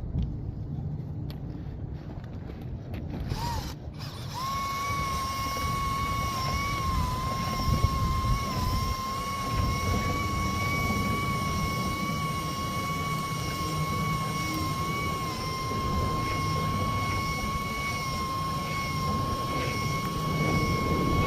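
A small motor starts about four seconds in and runs on with a steady high whine, over a low rumble of wind buffeting the microphone.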